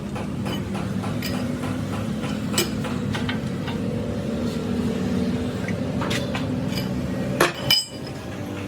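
Scattered metal knocks and clinks over a steady running engine, with a louder pair of metal strikes near the end.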